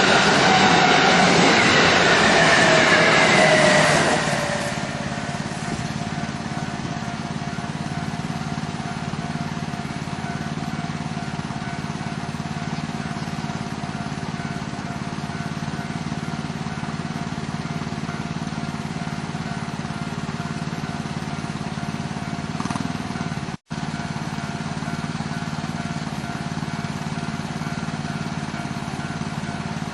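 Electric train running past the level crossing, its motor whine falling in pitch as it goes and dropping away about four seconds in. After it, a steady ringing tone from the level crossing's warning bell carries on, with a brief cut-out about two-thirds of the way through.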